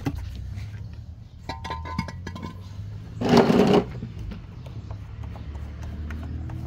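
Background music with steady low notes. About three seconds in comes a short, loud clatter of parts being handled.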